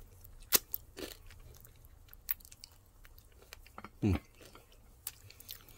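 Chewing and biting on crispy air-fried chicken wings, with scattered sharp crunches.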